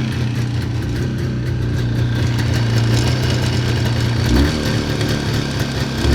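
Jawa 638 motorcycle's two-stroke twin engine running with the engine knock whose cause the owner is asking about. About four seconds in the engine note changes with a short low thump, and another comes near the end.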